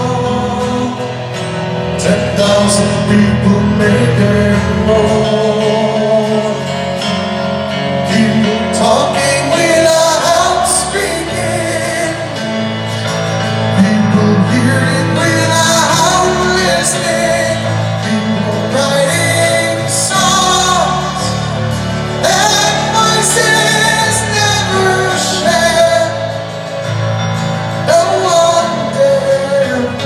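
Live arena performance of a slow rock ballad: a lead vocal sung over the band, held notes gliding and swelling, heard from the audience.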